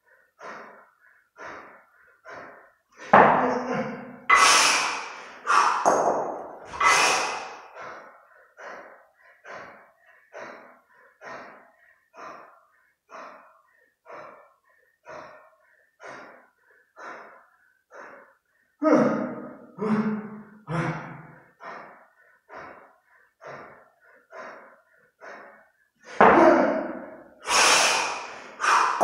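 Hard, quick breathing of a kettlebell lifter holding two 32 kg bells in the rack mid-set, about one and a half breaths a second. Three stretches of louder, harsher huffs come early, past the middle and near the end.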